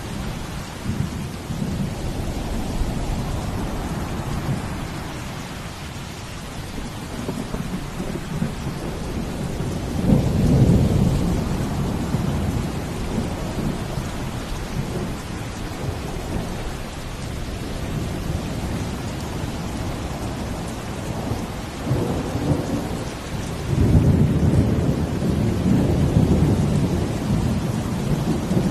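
Steady rain falling, with deep rumbling swells rising about ten seconds in and again near the end.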